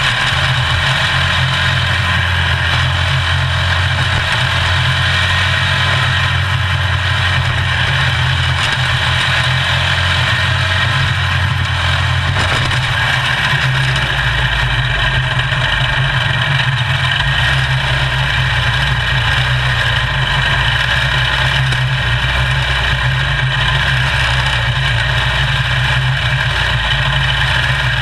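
Quarter midget race car's small single-cylinder engine running steadily during a race, heard up close from on board the car.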